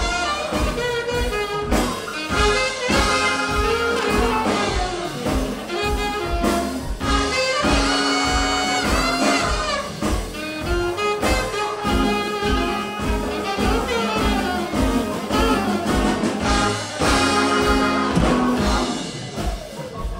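A live jazz band plays an instrumental passage: a trumpet-and-saxophone horn section over upright double bass, electric guitar and Hammond organ, with the bass keeping an even pulse. Near the end the horns drop out and the music gets quieter.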